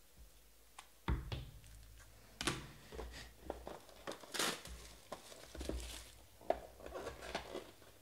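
Plastic shrink wrap crinkling and tearing as it is pulled off a trading-card box, with the cardboard box knocked and handled; a sharp knock about a second in, then irregular crackling rustles.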